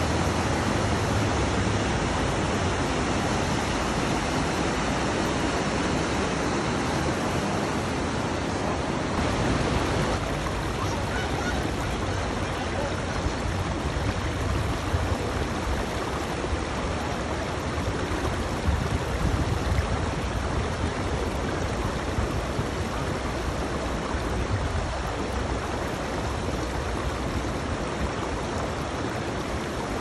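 Rapids of a rocky river rushing over and between boulders: a steady, even rush of whitewater.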